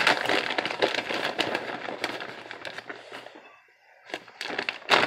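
Plastic bag of shredded cheese crinkling and crackling as it is handled and the cheese is shaken out into a blender jar. The crinkling fades out about three and a half seconds in, then a few more crackles come near the end.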